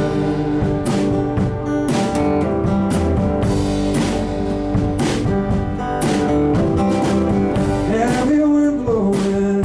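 Live band playing a mid-tempo song: guitar over bass, with drum strikes on a steady beat about once a second.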